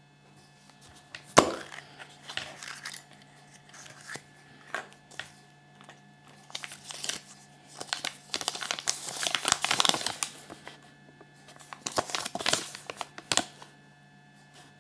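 A thin crinkly wrapper being torn open and crumpled by hand, in irregular bursts, with a sharp click about a second and a half in.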